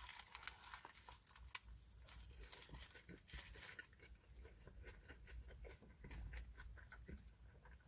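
Near silence with faint clicks and soft rustling: a person chewing a sandwich.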